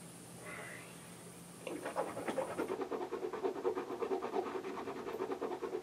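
A man making a rapid, rhythmic pulsing sound with his mouth through pursed lips, starting about a second and a half in.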